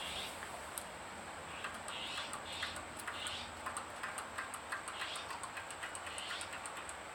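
Suzuki SS20 Cervo engine running with a rapid, irregular ticking from its exhaust leak.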